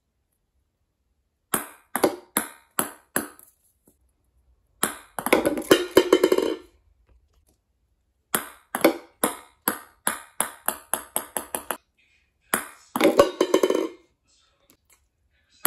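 Penn ping-pong ball bouncing on a wooden floor in runs of sharp clicks that come quicker and quicker. Twice the bouncing turns into a dense rattle with a hollow ring as the ball drops into a cardboard Pringles can and rattles around inside it.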